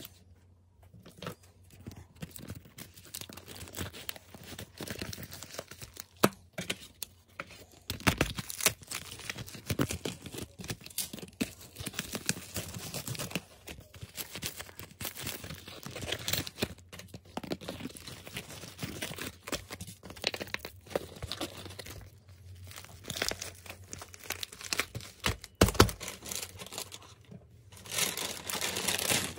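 Plastic packaging being handled: bubble mailers and clear plastic sleeves crinkling and rustling in irregular bursts, with sharp crackles and taps.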